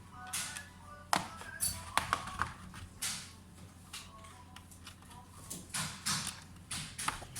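Background music with irregular light taps and clicks over it.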